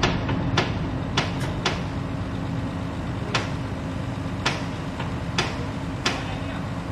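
A steady engine hum, with sharp knocks or clanks at uneven intervals, several close together in the first two seconds and then one every second or so.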